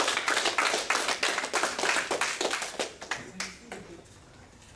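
A small group applauding with hand claps, dense at first, then thinning out and dying away about three seconds in.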